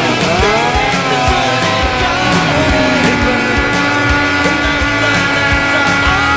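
Rock music soundtrack with distorted guitars and a steady drum beat.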